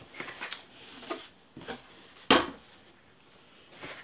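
Handling sounds as cloth drawstring dust bags are lifted out of a cardboard shoe box lined with tissue paper: light rustles and taps, with one sharper knock a little over two seconds in.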